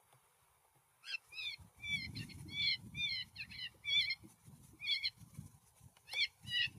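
A run of short, high animal calls, each falling in pitch, starting about a second in and repeating about twice a second, with a low rumble underneath.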